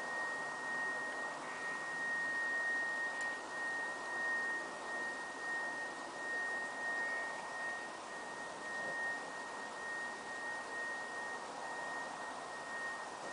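An unexplained high-pitched tone: a single steady whine near 2 kHz that holds one pitch and wavers slightly in loudness, over faint background hiss.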